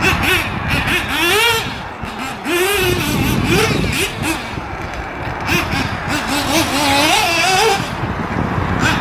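Radio-controlled off-road buggy driving a dirt track, its motor note rising and falling again and again with the throttle.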